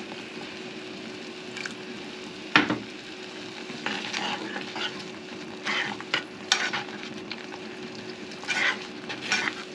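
A metal spoon stirring a thick mango sauce in a saucepan, scraping and tapping against the pot a handful of times, the loudest about two and a half seconds in. Under it the sauce sizzles steadily on the heat, with a steady low hum.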